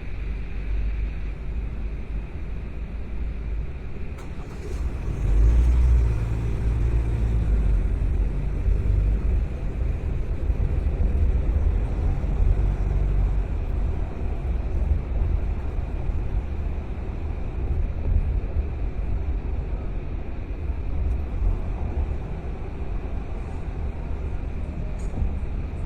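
A car driving along: steady low engine and road rumble, growing louder about five seconds in.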